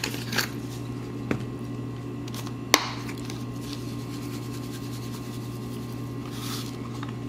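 Steady low hum with a few small clicks from a plastic seasoning shaker bottle being opened and handled, one sharp click near the middle, and a faint shake of powder near the end.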